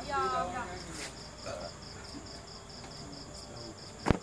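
Crickets chirping steadily in an even high pulse, about five chirps a second. A voice is heard briefly at the start, and a single sharp knock near the end is the loudest sound.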